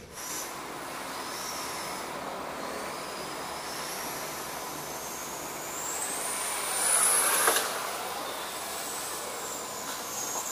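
Electric motor whine of an RC touring car with a 13.5T brushless motor running laps, several high whines rising and falling in pitch as it speeds up and slows down. It is loudest about seven seconds in, as it passes close.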